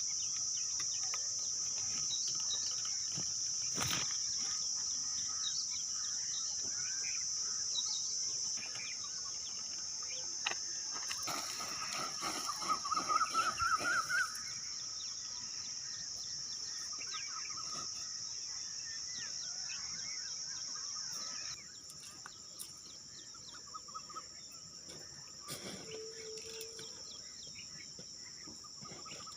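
Forest insect chorus: a steady high-pitched drone of crickets, with scattered bird chirps over it and a louder run of rapid chirping about twelve seconds in.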